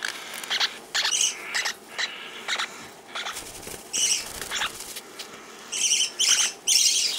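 Small pet parrots, a green-cheeked conure and a lineolated parakeet held in the hand, giving short high chirps in quick bunches: about a second in, again at four seconds, and again around six seconds.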